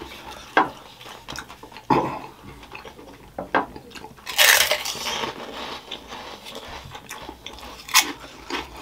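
Close-up eating sounds: biting and crunching into crispy fried dhumro (finger crisps), with one loud crunch about four and a half seconds in and another sharp crunch near the end, between quieter chewing and small clicks.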